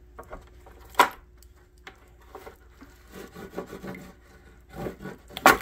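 Two sharp knocks, about a second in and near the end, with quieter scraping and rubbing between, as plates are served from a roasted beef rib.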